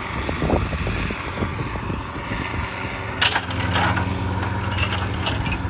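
Dragline excavator running as its bucket swings on the hoist and drag cables, the engine a steady low drone that firms up a little past the middle. About three seconds in comes one sharp clank, followed by a few lighter rattles.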